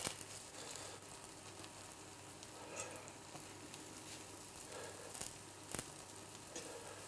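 Slices of toast bread frying in oil in a pan: a faint, steady sizzle, with a couple of sharp clicks as a fork turns the slices.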